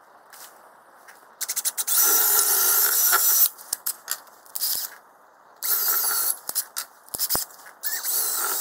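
Cordless drill boring holes into a wooden block, its motor whining in three runs of a couple of seconds each, the first starting with a few quick trigger stabs.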